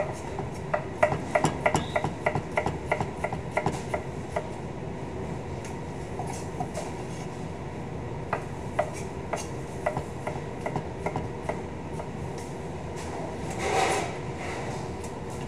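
Knife cutting a tomato on a plastic cutting board: a quick even run of knocks, about four a second, for the first few seconds, then scattered single cuts. A steady rumble underneath, and a brief rush of noise near the end.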